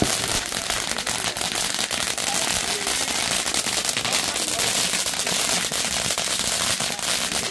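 Several ground fountain fireworks burning at once: a steady, dense hiss of spraying sparks, studded with fast, irregular crackling pops, and no big bangs.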